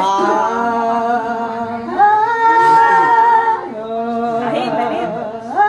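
A woman singing a cappella, holding a few long, steady notes one after another with no accompaniment, and sliding up into a new note near the end.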